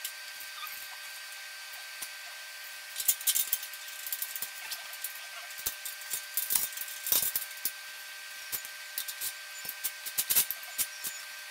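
Irregular metallic clinks, taps and rattles of gym-machine parts and hand tools being handled, starting about three seconds in, over a faint steady hum.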